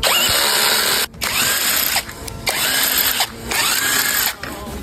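Handheld power tool run in four short bursts about a second long. Each burst spins up with a rising whine, holds, then cuts off.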